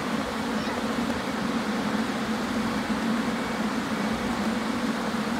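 Electric blower fans running steadily to keep inflatable tube-figure sculptures inflated: an unchanging low hum under a broad rushing hiss of air.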